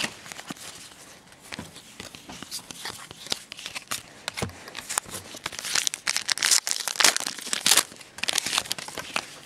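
Foil wrapper of a 2010 Panini Gridiron Gear trading-card pack crinkling and tearing as it is opened. The crackling is quieter in the first few seconds and gets denser and louder in the second half.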